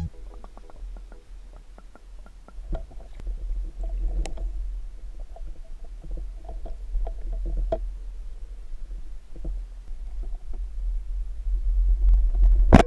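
Underwater sound picked up by a spearfisher's camera: a low muffled rumble of moving water with scattered faint clicks and knocks. Near the end a single sharp, loud knock, the speargun firing at a common nase.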